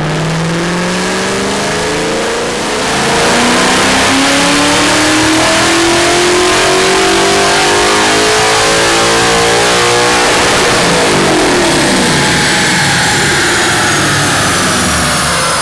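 A Ford 5.0 Coyote V8 making a dyno pull on a chassis dyno: the engine note climbs steadily, louder from about three seconds in, then falls away after about ten seconds as the engine winds down.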